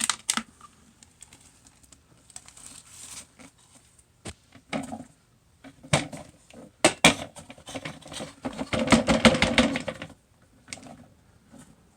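Vacuum cleaner's dust bin being emptied of road salt and dirt: scattered clicks and knocks, then the grains pouring out in a dense crackling patter, loudest about nine seconds in.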